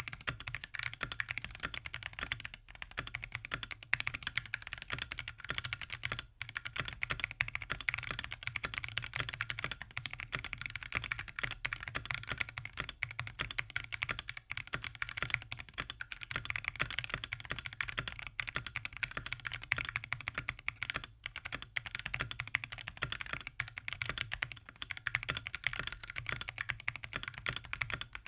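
Steady, fast typing on a mechanical keyboard with Akko V3 Creamy Purple Pro tactile switches in an aluminium case and plate. The keystrokes are clacky, with some thock to them.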